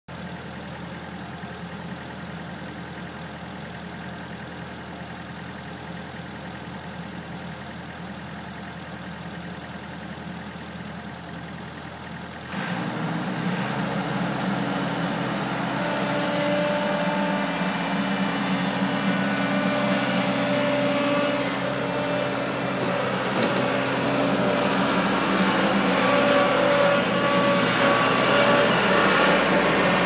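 1980 Case 1845 skid-steer loader's engine running steadily. About twelve seconds in it gets suddenly louder, and it swells further toward the end as the machine works close by, with a steady higher tone over the engine.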